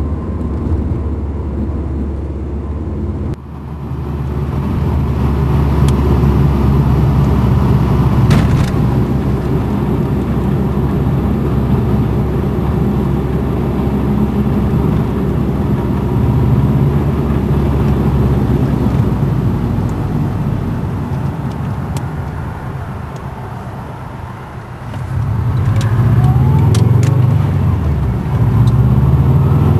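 Subaru Impreza WRX STI version 2's turbocharged flat-four running through an N1 silencer while the car is driven. The sound drops sharply about three seconds in, then builds. It fades gradually through the middle and rises strongly again near the end, with a short dip just before the close.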